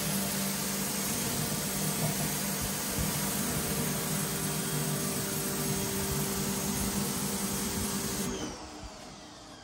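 EDOU 20-inch stainless steel pressure washer surface cleaner running on concrete: a steady hiss of the spinning spray jets under the hood, with the hum of the 2300 PSI electric pressure washer pump. About eight seconds in the spray cuts out and the sound drops sharply, leaving a faint falling whine.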